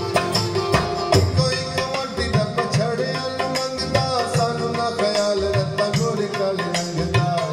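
Music with a repeating drum rhythm and gliding melodic lines, played back through a home stereo's floor-standing loudspeakers driven by a Luxman M-02 power amplifier and C-02 preamplifier.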